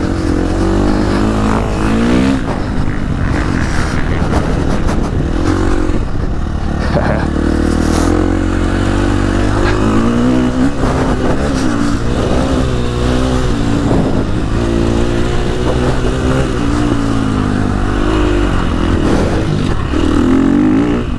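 KTM 350 SX-F four-stroke single-cylinder dirt bike engine being ridden hard, its pitch rising and falling over and over as the throttle opens and closes. Wind rushes over the microphone.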